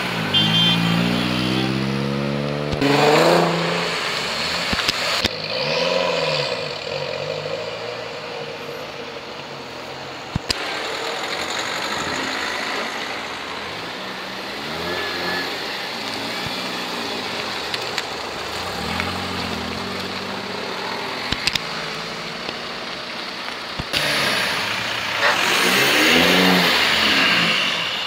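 Tuned cars driving off one after another, engines revving hard and accelerating past, their engine notes rising and falling. The loudest revs come in the first few seconds and again near the end.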